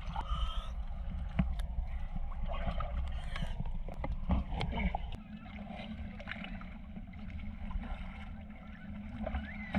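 Water sloshing and gurgling at the surface, over a steady low rumble, with scattered sharp knocks and clicks.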